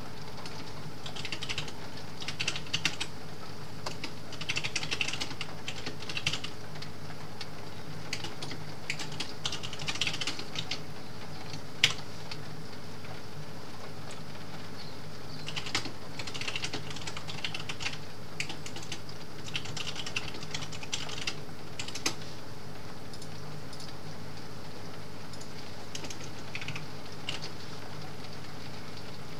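Typing on a computer keyboard in flurries of key clicks, stopping for a few seconds near the middle and thinning to scattered taps toward the end, with a couple of louder single clacks. A steady hiss of rain on a skylight runs beneath.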